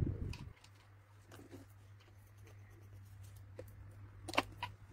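Faint, scattered taps and clicks of makeup products being handled and set down, with a sharper click near the end, over a steady low hum.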